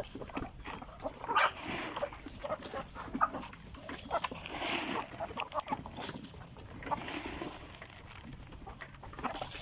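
Free-range chickens clucking and calling, with many short scattered sounds among them.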